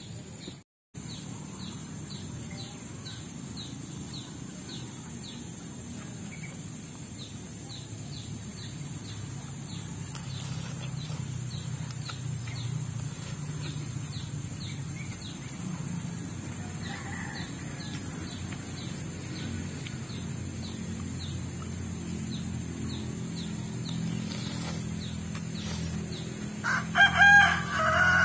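A rooster crows once near the end, a loud, pitched call lasting about a second and a half. Before it there is a steady low hum and a soft, high tick repeating about twice a second through the first half.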